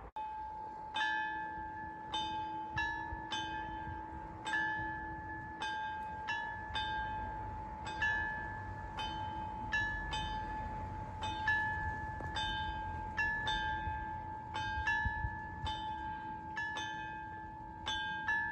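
Railway level-crossing warning bell ringing: a struck, ringing note repeated about every half second to a second, the tone carrying on between strikes.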